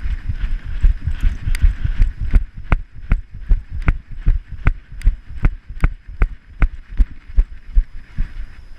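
A dog's strides jolting a harness-mounted action camera as it runs and then trots: dense low thumps at first, then an even beat of sharp knocks about two and a half times a second, one with each stride, easing off near the end.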